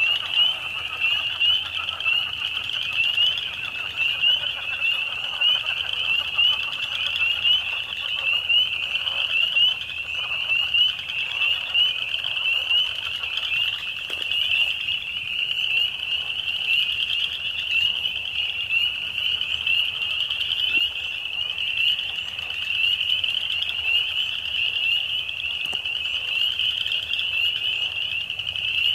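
A dense, continuous chorus of many small frogs calling at once, high-pitched and unbroken, the spring breeding chorus. A fainter, lower layer of calls sits beneath it for about the first ten seconds.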